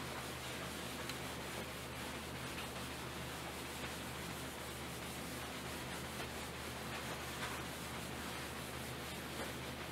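Whiteboard duster wiping across a whiteboard in faint repeated rubbing strokes, over a steady background hiss and low hum.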